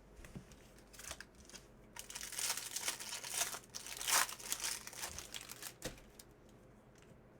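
Crinkling and tearing of a trading-card pack's foil wrapper as it is ripped open, an irregular crackle that is loudest around the middle and dies away about a second before the end.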